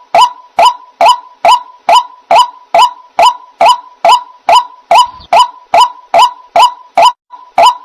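White-breasted waterhen (dahuk) calling: a loud, evenly paced series of short sharp notes, about two a second, with a brief falter near the end.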